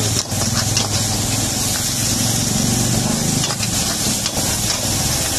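Chopped vegetables stir-frying in a hot wok: steady sizzling, with the metal ladle knocking and scraping against the wok several times.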